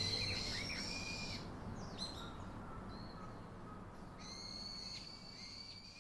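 Small birds chirping and calling in high, short gliding notes, several voices overlapping in two spells, fading out near the end.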